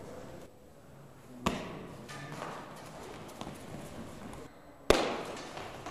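Two sharp knocks ringing out in a large echoing hall, about three and a half seconds apart, the second much louder than the first.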